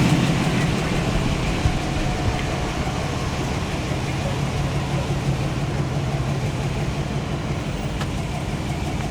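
A motor vehicle engine running steadily at idle, a low even drone without revving.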